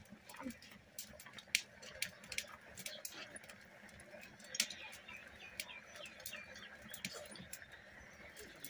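Scattered sharp clicks and small smacks of two people eating rice and curry with their fingers from steel plates and bowls, with birds chirping in the background.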